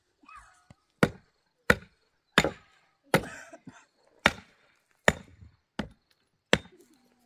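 A metal digging tool striking hard, stony ground in eight sharp blows, about one every 0.7 s, loosening earth at the base of a wooden swing post.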